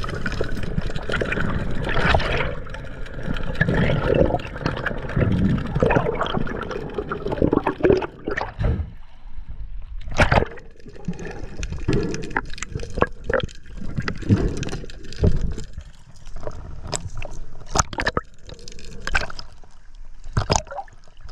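Sea water gurgling and splashing close up, with irregular sharp knocks.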